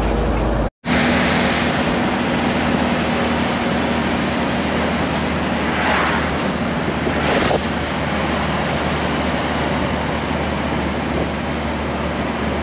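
Steady road, engine and wind noise heard from the open rear bed of a moving songthaew pickup truck. The sound cuts out for an instant just under a second in, and it swells briefly about six and seven seconds in as traffic passes alongside.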